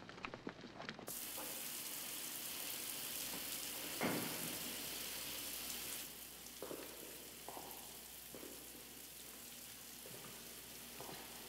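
Shower running: a steady hiss of spraying water that cuts in suddenly about a second in, with a few faint knocks over it.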